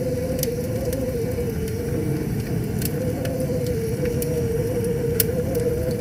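Split logs burning in a metal fire pit: a steady low roar of flames with sharp crackles and pops every second or so, the loudest about five seconds in, over a steady hum.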